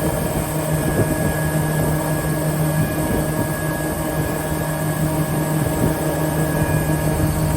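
Altendorf sliding table saw with scoring blade, its 5.5 kW main motor and blades running at steady speed: an even mechanical hum with a low drone and a few fixed higher tones.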